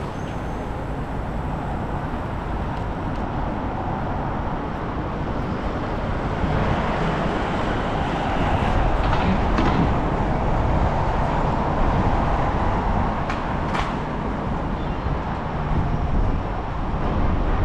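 City street traffic heard from a moving bicycle, with wind rumbling over the microphone. The traffic noise swells through the middle, and a few brief sharp clicks sound in the second half.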